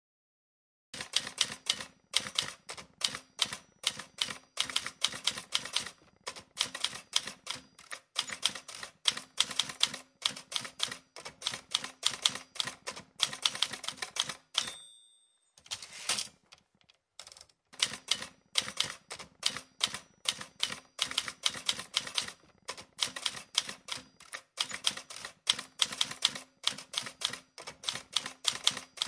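Typewriter keys clacking in fast runs of strokes. About halfway through, the line-end bell dings and the typing pauses briefly before it starts again.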